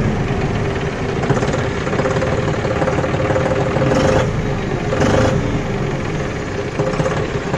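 John Deere 5210 Gear Pro tractor's three-cylinder diesel engine running steadily.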